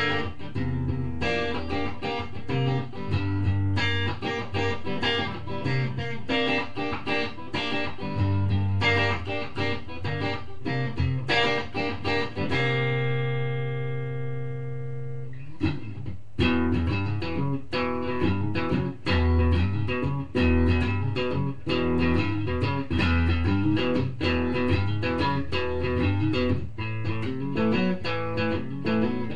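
Guitar music: quick plucked notes over a bass line, with one chord left ringing for about three seconds midway before the playing starts again.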